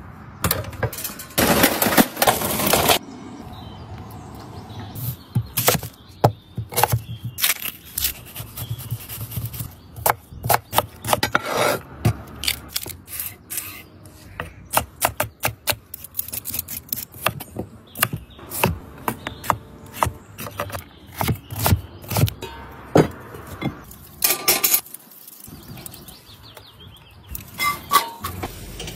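Chef's knife chopping vegetables on a wooden cutting board: a long run of sharp, irregular chops. There are a couple of seconds of loud rushing noise near the start.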